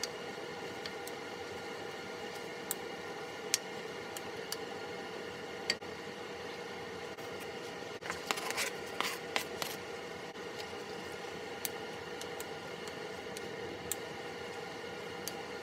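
Chopped vegetables scraped off a plastic cutting board into a pot, with a short rattle of falling pieces about eight seconds in. Scattered light clicks come from a wooden spoon stirring the vegetables against the pot, over a steady hum.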